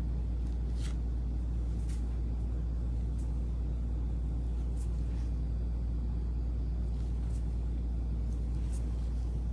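A steady low hum, with a few faint light clicks scattered through it.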